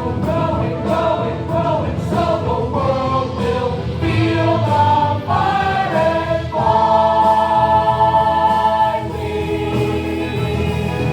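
A choir singing a stage-musical song in close harmony, with long held chords; no lyric words are made out.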